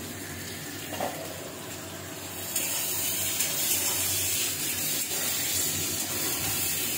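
Sliced onions and nigella seeds sizzling in hot oil in a kadai on a gas burner, stirred with a spatula. The sizzle grows louder about two and a half seconds in.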